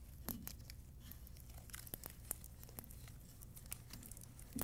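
Faint scattered clicks and rubbing as gloved fingers turn a plastic supply-line coupling nut onto a toilet fill valve's threaded plastic shank.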